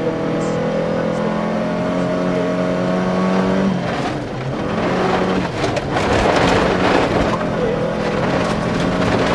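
Volvo 240 rally car heard from inside the cabin at speed on a gravel stage. The engine pulls with its pitch slowly rising, then drops off about four seconds in. After that, a rough rush of gravel and stones rattling against the car takes over, with the engine running underneath.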